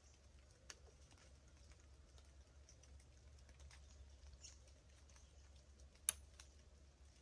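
Near silence, with faint scattered ticks and one sharp click about six seconds in.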